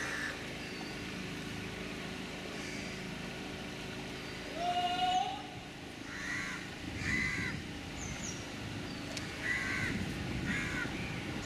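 Crows cawing in several bursts of harsh calls, over the steady low hum of a moving houseboat's engine. A short rising whistle sounds once, about four and a half seconds in.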